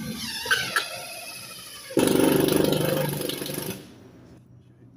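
Cordless drill-driver driving a long screw through siding into a wall stud: the motor whines with rising and falling pitch, then works harder and louder for about two seconds and stops about four seconds in.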